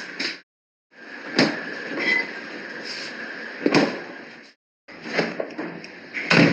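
Household knocks and bumps in three short recordings cut one after another, each over a steady hiss, with the loudest bump near the end.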